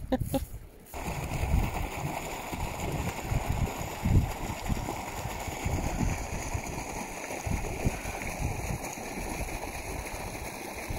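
Water rushing and gurgling steadily as it pours from an inlet into a brim-full pond, running hard after torrential overnight rain. It starts about a second in.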